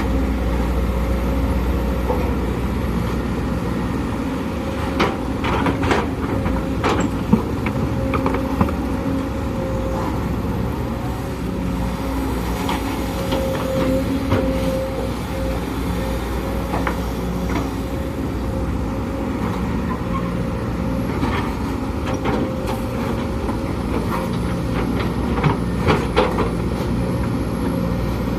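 Sumitomo SH210 excavator's diesel engine running steadily under working load, with a steady whine over it. Sharp knocks come in a cluster about five to nine seconds in and again near the end.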